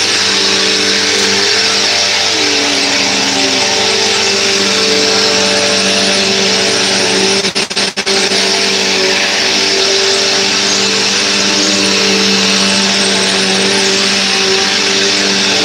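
Bissell CleanView Helix Deluxe bagless upright vacuum cleaner running while it is pushed over carpet: a steady motor whine with several held tones over a loud rush of air. There are a couple of brief dips in level about halfway through.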